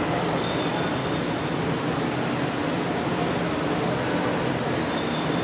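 Steady rumble and low hum of a subway tunnel at the platform end, holding an even level throughout.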